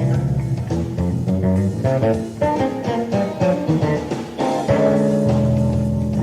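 Electric bass solo played live: a quick run of plucked notes and chords, then a chord held ringing from a little under five seconds in.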